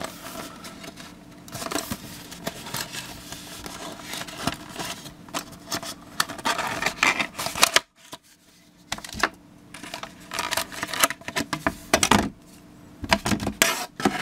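Clear plastic blister pack and cardboard backing of a soldering iron being opened and handled by hand: an irregular run of crinkles, crackles and sharp clicks, with a short break about eight seconds in.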